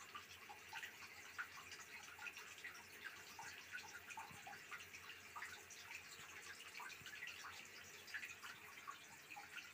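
Faint water dripping and trickling in a bathtub: small, irregular drips, several a second.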